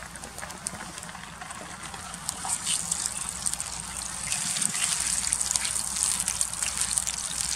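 Tomato paste sizzling and crackling in hot oil in a frying pan, growing louder partway through as it is spread across the pan with a spoon.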